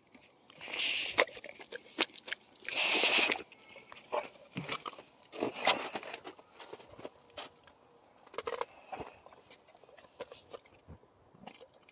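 Packed snow crunching. Two longer crunches come in the first few seconds, then scattered small crunches and clicks.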